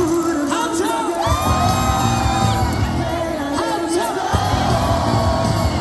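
A huge stadium crowd singing a baseball cheer song in unison, with amplified music and a pulsing beat underneath and scattered shouts.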